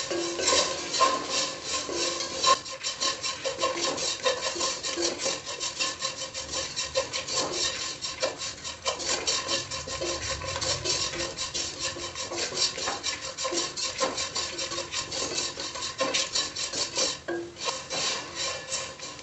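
Wooden spatula scraping and stirring sliced shallots and spice powders around a granite-coated pan in quick, repeated strokes, with a brief pause near the end. The powders are being sautéed with the shallots until their raw smell cooks off.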